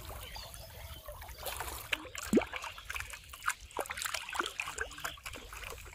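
Pond water splashing and trickling: a busy run of small splashes and plops, loudest about two seconds in, as a floating plastic-bottle fishing trap is jerked about in the water.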